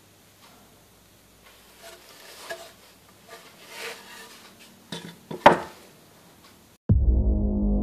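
Wooden tenon and mortise pieces handled: scraping as the tenon slides into its mortise, a few light knocks, then one sharp wooden knock about five and a half seconds in. Loud low music starts suddenly about a second before the end.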